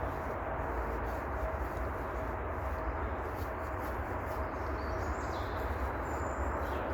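Steady outdoor background noise with a low rumble, and a bird giving a few short, high chirps near the end.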